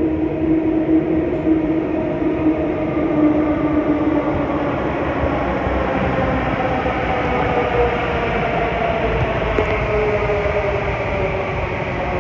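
Kawasaki & CRRC Sifang CT251 metro train braking into the platform: the traction motors whine in several tones that fall steadily in pitch as the train slows, over a continuous wheel and running rumble.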